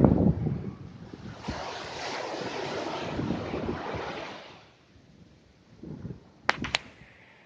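Surf on a sandy beach: a wave's foam hisses up the sand and fades away, with wind buffeting the microphone at the start. Two short sharp clicks near the end.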